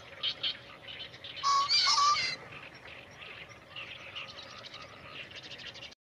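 Male green pheasant giving its loud, harsh two-note crow, about a second and a half in.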